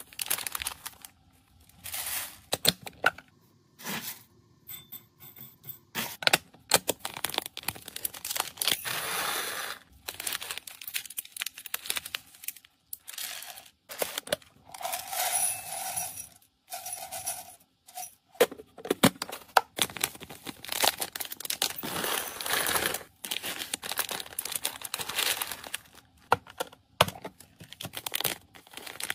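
Plastic zip-lock pouches crinkling and being torn open, with dry cat treats rattling and clicks from a plastic storage canister's lid, in a dense run of short crackles and clicks.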